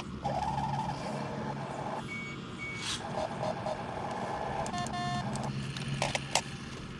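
Small electric motors and gearing of radio-controlled construction models running with a steady low hum. Two stretches of whirring come as the machines move, with two short high beeps a little after two seconds in and a few sharp clicks near the end.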